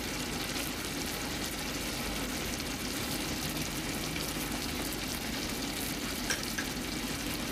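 Chicken breasts sizzling and simmering in a shallow sauce in a large frying pan: a steady sizzle.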